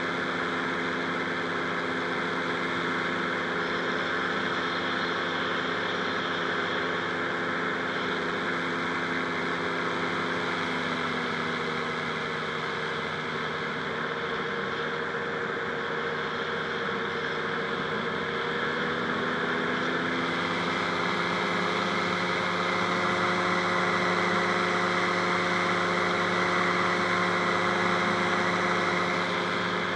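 Rotax 582 two-cylinder two-stroke engine of a Buckeye powered parachute running steadily. Its pitch dips partway through and then rises, and it runs louder for most of the second half.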